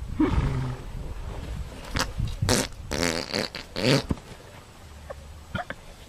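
A horse rolling in sand, letting out a series of short, low, rasping noises through its first few seconds, then going quieter.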